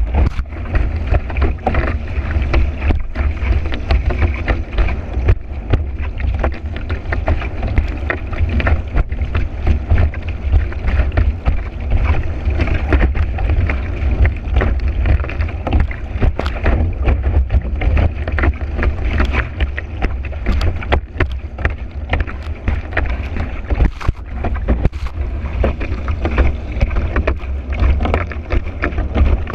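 Kiteboard riding fast over choppy water in strong wind: wind buffeting the board-mounted camera's microphone as a heavy, steady low rumble, with water hissing and rushing under the board and frequent sharp slaps and chatter as the board hits the chop.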